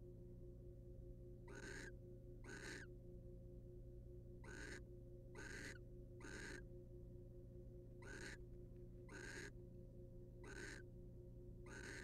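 Barn owl giving short raspy hissing calls, about nine in a row, spaced a second or two apart, over a faint steady electrical hum.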